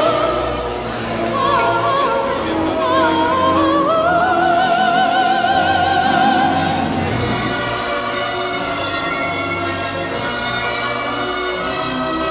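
Orchestral ride music with an operatic soprano singing with heavy vibrato, rising to a long held note; after about seven seconds the voice fades and the orchestra carries on.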